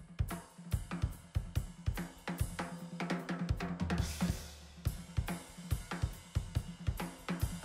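Sugar Percussion stave-shell drum kit played through studio microphones: a busy pattern of kick, snare and hi-hat strokes, with a cymbal crash over a low drum hit about four seconds in.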